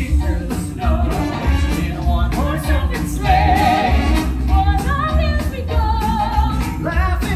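A stage band with horns and singers performing an upbeat song. Held sung notes with vibrato ride over a steady bass beat.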